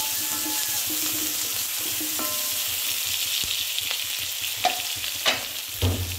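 Chopped onions, green chillies and cumin seeds sizzling steadily in hot oil in a metal kadai while a wooden spatula stirs them. In the second half the spatula scrapes and taps against the pan a few times, with a dull knock just before the end.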